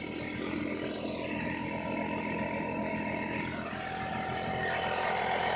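Portable electric air compressor running steadily as it pumps up a flat tyre, its hum stepping slightly lower about three and a half seconds in and growing a little louder.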